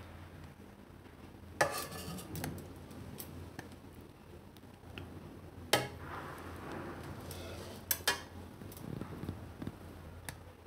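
Light clinks and knocks of kitchen dishes and utensils: sharp ones about one and a half, six and eight seconds in, with softer handling noise between them. A faint steady hum runs underneath.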